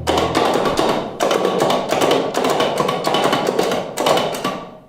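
Rapid typing on an oversized mechanical keyboard: quick runs of loud key clacks with short pauses between them, stopping near the end.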